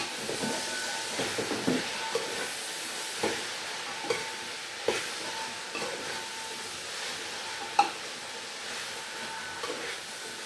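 Cabbage frying and sizzling in a pan with tomatoes and spices while being stirred, with a utensil knocking against the pan now and then.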